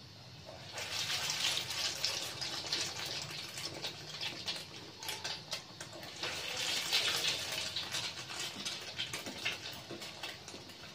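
Egg-dipped chicken spring rolls deep-frying in hot oil in a wok, the oil sizzling and crackling. The sizzle starts about a second in and grows louder again around six seconds as another roll goes into the oil.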